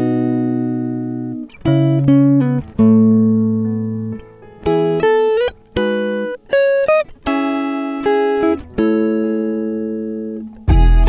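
Background music: a plucked-string melody of single notes and short chords, each note ringing and fading, with a fuller passage and deep bass coming in near the end.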